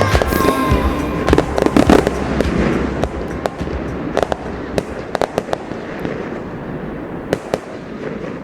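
Fireworks going off: a rapid run of sharp bangs and crackles from bursting shells, densest in the first few seconds and thinning out toward the end, over background music.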